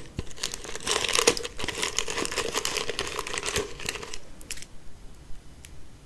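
Fingers rummaging through wrapped sweets in a clear plastic jar held close to the microphone: dense crinkling and rustling of candy wrappers. It stops about four seconds in, leaving a few faint clicks.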